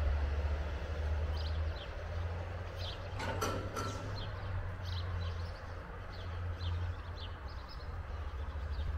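Small birds chirping repeatedly over a steady low rumble that eases a little about two seconds in. A short burst of clicking comes between three and four seconds in.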